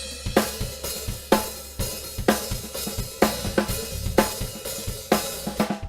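Music: a drum kit playing a steady beat with cymbals washing throughout and a heavy accented hit about once a second.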